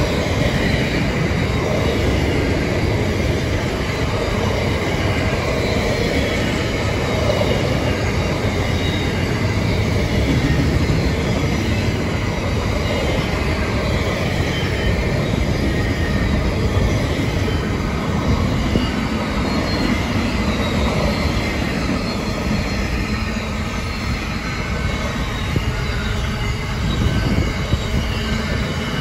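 Freight train wagons rolling past, louvre vans and then container flats, giving a steady continuous rumble of steel wheels on the rails with thin high wheel squeal over it.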